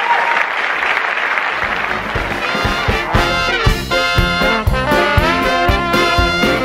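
Applause dies away, and about two seconds in a band starts up with brass-led, swinging music over a steady drum beat.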